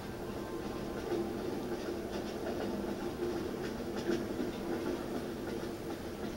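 Recorded sound of a train running, played through exhibit loudspeakers: a steady rumble and hum with a few faint clicks.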